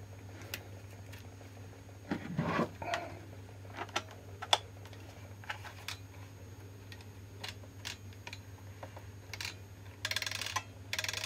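Scattered light plastic clicks and small knocks as a steering wheel is pushed onto a FlySky GT5 pistol-grip RC transmitter and the transmitter is handled, with a short scraping rustle near the end.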